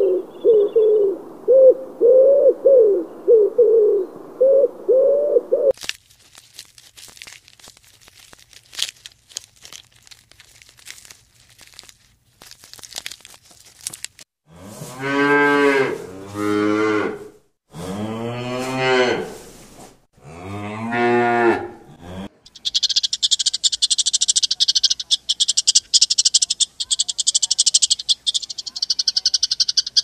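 Feral pigeon cooing repeatedly for about the first six seconds. Cattle follow, mooing several long moos one after another past the middle. A rapid, high-pitched chirping trill runs through the last several seconds.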